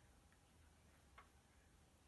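Near silence: quiet room tone with a faint single click about a second in.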